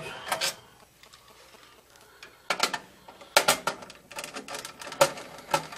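Sharp clicks and metal taps from a screwdriver and screws against the sheet-metal mount as a furnace control board's mounting screws are taken out. They come in short clusters, after a quiet stretch of about two seconds near the start.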